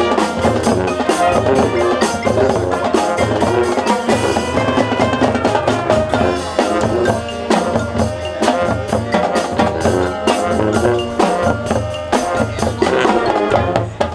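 High school marching band playing its field show: brass and woodwinds over the drumline and the front ensemble's mallet percussion.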